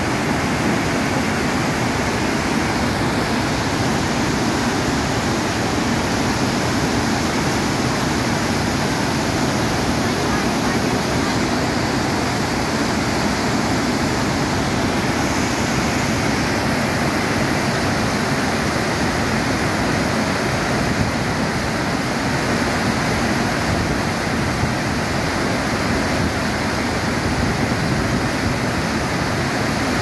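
Bad Gastein waterfall on the Gasteiner Ache: heavy white water pouring down a steep rocky cascade, a loud, steady rushing.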